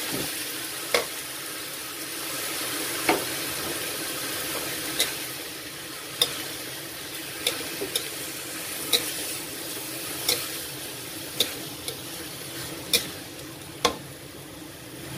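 Shrimp, banana blossom and spice paste sizzling steadily in a pan while being stir-fried. A utensil knocks against the pan about a dozen times, every second or so, with the stirring.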